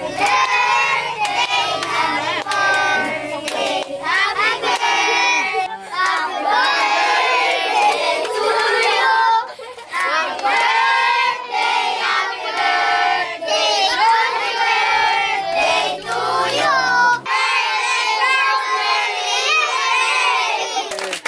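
A group of children singing together loudly, with hand clapping mixed in.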